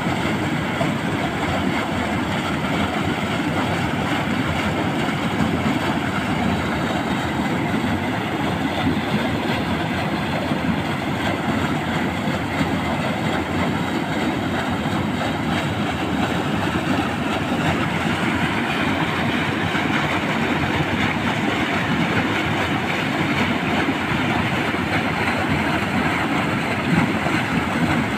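Stream water rushing and splashing steadily.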